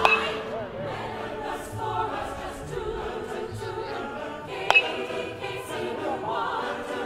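Choral background music, with two sharp metallic pings of an aluminium softball bat striking the ball: one at the very start and a louder one about two-thirds of the way through, each with a brief ring.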